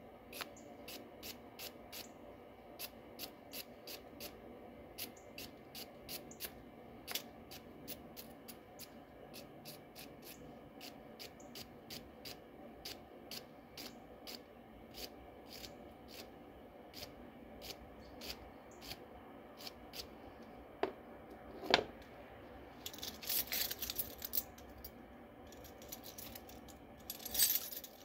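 Light, sharp metal clicks, about two a second, from hand tools at work on the engine, then a louder knock a little after 20 s in and metal tools clinking and rattling near the end.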